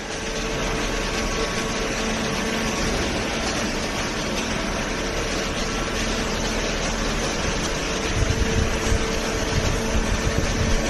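Hydraulic baler's motor and hydraulic pump running with a steady hum; a low rumble grows louder about eight seconds in.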